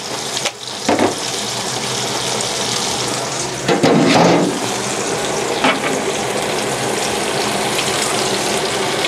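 Nile perch fillets deep-frying in hot oil: a steady sizzle with bubbling and crackle. The sizzle swells louder for about half a second around four seconds in, with a few sharper crackles before and after.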